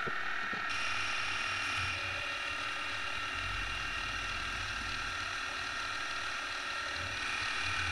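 Milling machine spindle running with a small cutter machining holes in an aluminium plate: a steady mechanical whir with several held tones, and a brighter cutting hiss that comes in about a second in.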